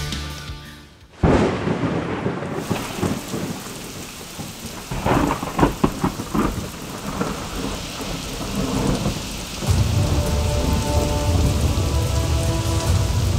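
Thunderstorm with heavy rain: a sudden thunderclap about a second in, sharp cracks of thunder around five to six seconds in, and a deeper rumble building in the last few seconds under the steady rain.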